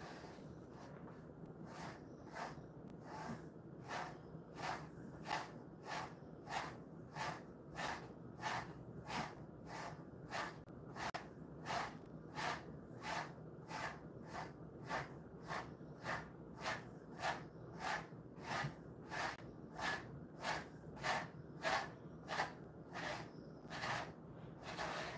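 A hand patting a dog's fur over and over in a steady, even rhythm, about two pats a second, as a massage; the pats grow a little louder toward the end.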